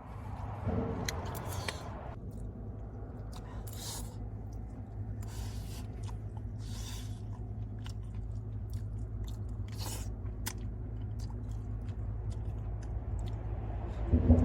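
Someone chewing and crunching food in short, irregular bites, over a steady low hum.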